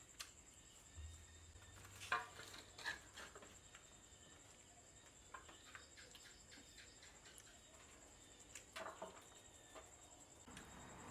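Near silence: faint background hiss with a few scattered light clicks and taps, the clearest about two and three seconds in and again near nine seconds.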